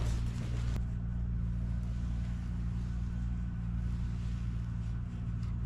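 Steady low engine drone, a motor running at an even speed.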